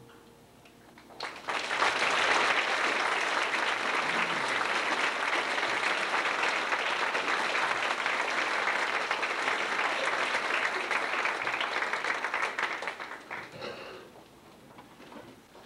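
Audience applauding: the clapping starts about a second in, holds steady, and dies away near the end.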